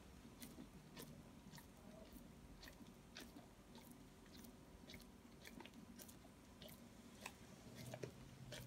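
Faint wet smacking and tongue clicks, roughly two a second, from a large dog licking and working sticky peanut butter around its mouth.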